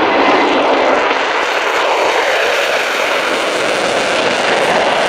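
Lockheed Martin F-35A Lightning II's Pratt & Whitney F135 turbofan running in afterburner as the jet climbs away after take-off: a loud, steady jet noise.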